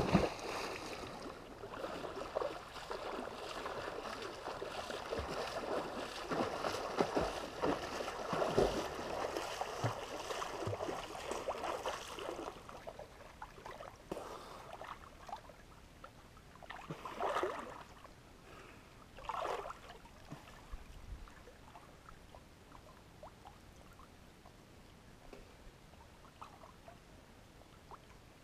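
A big splash as a person plunges into a river, then about twelve seconds of churning, splashing water as they swim. Two short splashes follow a few seconds later, then only quiet lapping water.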